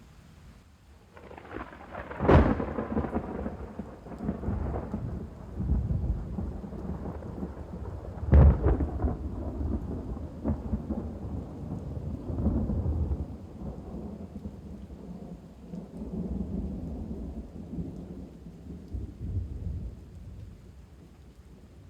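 Thunder: a sharp thunderclap cracks a couple of seconds in and another about six seconds later, each followed by long low rolling rumbles that die away, with rain underneath.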